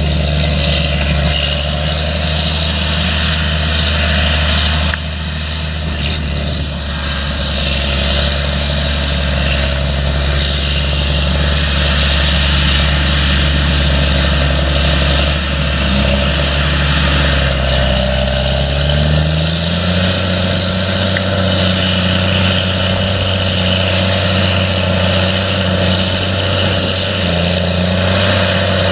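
An engine running steadily. About two-thirds of the way through, its pitch rises and then holds at the higher speed.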